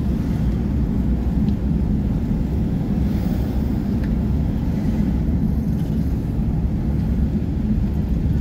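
Car driving slowly along a city street, heard from inside the cabin: a steady low rumble of engine and tyres on the road.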